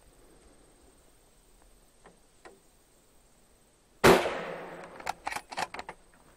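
A single rifle shot about four seconds in, loud and sudden, dying away over about a second, followed by several sharp clicks and knocks.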